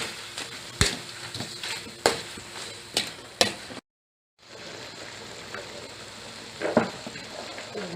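Chicken and string beans sizzling in a pan, with sharp knocks of a cooking utensil against the pan as the food is stirred. There is a short dropout about halfway, after which the sizzling continues with one softer knock near the end.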